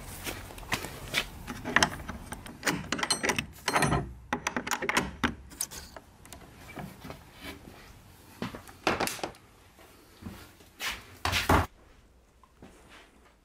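Footsteps on a path, then the clinks and knocks of a padlock and metal hasp being undone and a wooden door being opened, with a few loud knocks near the end.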